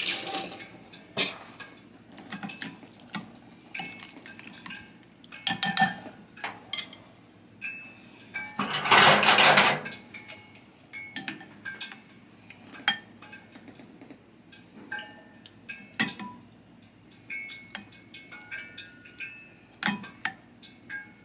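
Kitchen utensil and dishes clinking and knocking as chicken pieces are worked in a glass bowl of beaten egg with a slotted spoon: scattered light clicks and short ringing clinks, with a brief louder rush of noise about nine seconds in.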